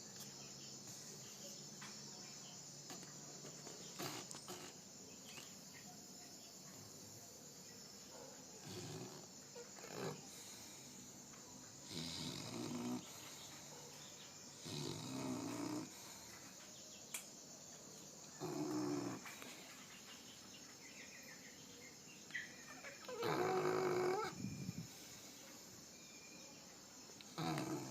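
Pitbull puppy snoring in her sleep: a snore every few seconds, each about a second long, with one louder, longer snore late on.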